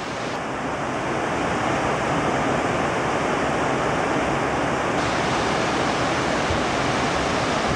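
A large waterfall pouring into a river pool: a steady rush of falling water that grows a little louder over the first two seconds.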